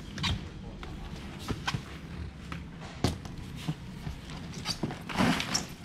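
Scattered knocks and thuds of styrofoam boxes being handled and set down, with a louder burst of noise about five seconds in.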